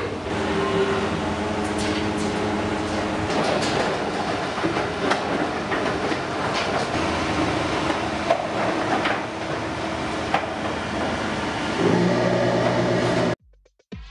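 Calf-barn ambience: a steady mechanical hum and rumble with scattered metallic clanks and knocks. It cuts off abruptly about a second before the end.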